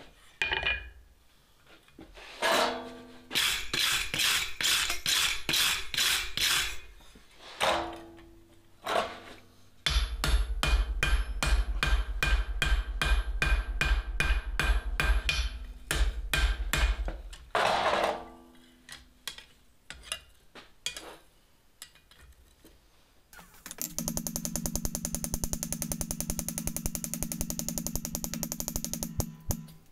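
Hand hammer striking hot steel on an anvil in runs of blows, the anvil ringing after them, texturing the handle of a forged flux spoon. Near the end comes a much faster run of light blows that rattles.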